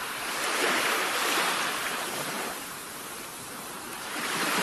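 Rushing, surf-like noise with no tones. It swells about a second in, eases off, and swells again near the end.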